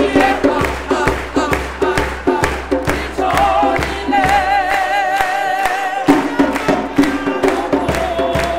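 A South African church choir singing in full voice, with hands clapping along to a steady beat. In the middle a high voice holds a long, wavering note.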